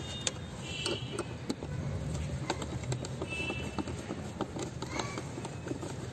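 Scattered light clicks and taps of a fog lamp and its plastic-and-metal mounting bracket being handled and fitted into a car bumper, over a low hum. Two short high chirps come about one second and three and a half seconds in.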